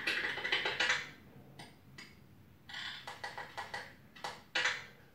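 Keys typing on a computer keyboard in several short runs of quick clicks and taps, with quiet gaps between them.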